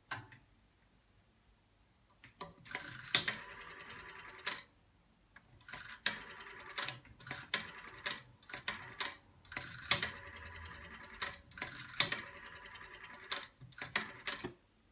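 Siemens rotary dial on a telex dialling unit being dialled, several digits one after another. Each digit is a short whirr with a rapid train of clicks as the dial runs back, sending the number's dial pulses, with quiet gaps while the next digit is wound.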